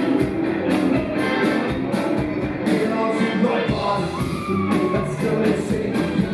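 Live rock band playing in a concert hall, heard from the audience, over a steady drum beat.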